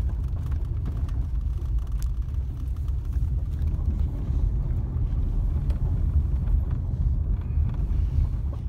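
Road noise inside a moving car: a steady low rumble of the vehicle driving, with faint scattered ticks.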